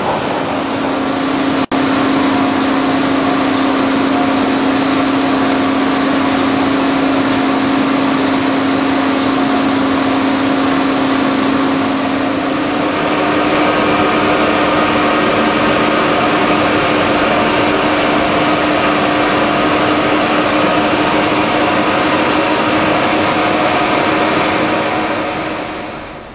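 Steady, loud drilling-rig machinery noise on the drill floor, with a constant hum whose pitch steps up slightly about halfway through. The sound cuts out for an instant near two seconds in and fades down at the very end.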